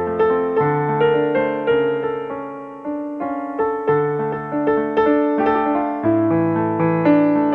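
Piano voice of a Yamaha PSR-A3000 arranger keyboard played with both hands. A melody runs over low bass notes, each note ringing on as the next is struck, and the playing gets briefly softer about three seconds in.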